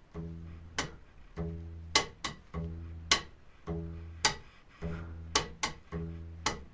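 Upright double bass played slowly in rockabilly slap style: a low plucked note about once a second, each followed by one or two sharp clicks of the strings slapped back against the fingerboard. It makes a repeating 'boom chak, boom chaka' groove that mixes double and triple slaps and leaves out the slap on beats one and three.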